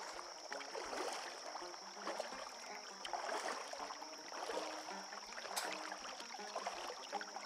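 Double-bladed kayak paddle stroking through calm river water, dipping on alternate sides, with splashing and water dripping off the blades every second or so.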